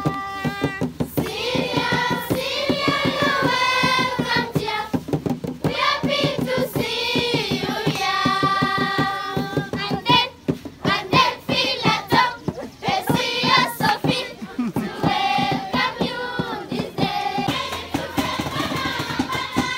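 A group of children singing together and clapping their hands in rhythm.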